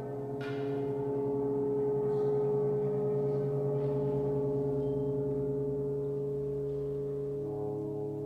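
Brass ensemble of trumpets, horns, trombones and tuba holding a sustained low chord, with one metal percussion stroke about half a second in that rings on over it. A new lower note enters near the end.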